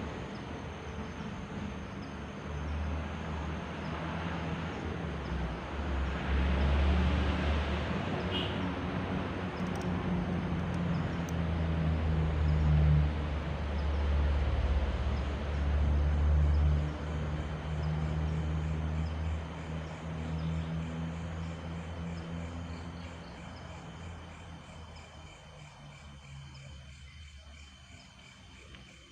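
A motor vehicle's engine rumble passes nearby: a low hum that swells to its loudest midway, then fades away over the last several seconds, with crickets or other insects chirping steadily behind.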